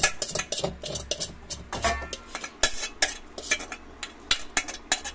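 Steel spoon scraping and clinking against stainless steel plates, in quick, irregular strokes.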